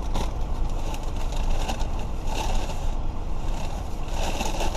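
Car running, heard from inside the cabin as a steady low rumble, with two hissy swells of noise about two and four seconds in.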